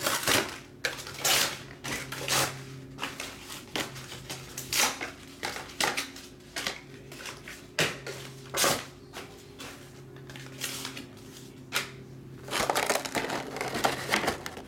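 Card box packaging being handled and opened: plastic wrap crinkling and cardboard rustling and knocking in irregular bursts, over a faint steady hum.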